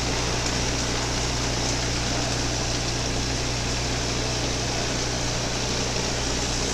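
Vibratory brass tumbler running, shaking brass cases in crushed walnut-shell media with brass polish: a steady low hum under an even hiss that does not change.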